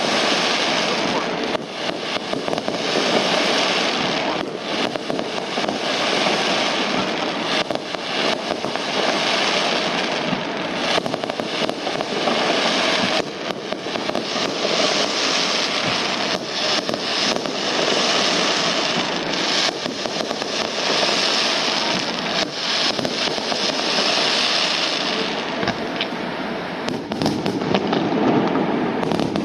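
Fireworks going off in a rapid, continuous barrage of bursts and crackling, with no pause.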